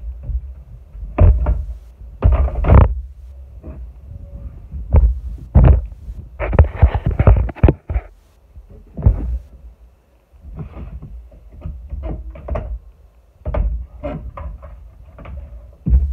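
Irregular knocks, clanks and scraping of a pipe wrench and pliers being worked on a toolbox dolly, with a longer rasping scrape about seven seconds in.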